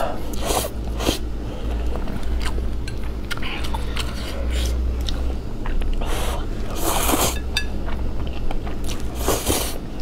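Close-miked slurping and chewing of noodles, with several short loud slurps spread through the stretch.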